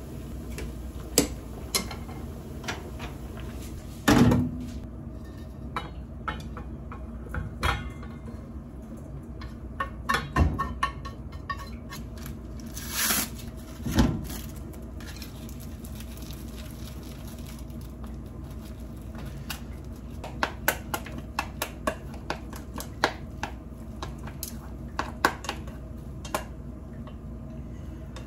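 Kitchen work sounds: pans, utensils and dishes knocking and clattering at irregular intervals over a steady low hum. Near the end, a quick run of light clicks as chopsticks stir food in a stainless steel bowl.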